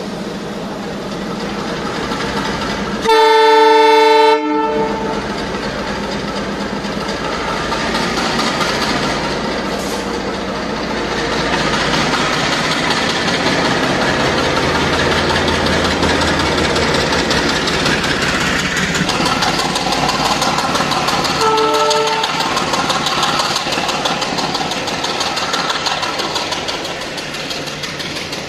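Sri Lanka Railways Class M10A diesel locomotive sounding one loud horn blast of about a second and a half a few seconds in, then the locomotive and its express carriages running past below as the train pulls out, with a second, shorter and fainter horn blast later on.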